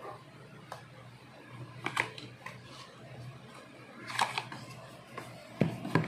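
A cardboard product box being handled and opened, with scattered short clicks, taps and scrapes of packaging as the contents are pulled out; the sharpest come about two seconds in, around four seconds and near the end.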